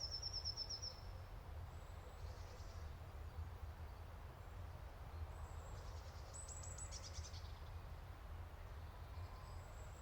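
Faint birds chirping over a low steady hum: a short high trill at the start, then brief high chirps about two seconds in and again around six to seven seconds.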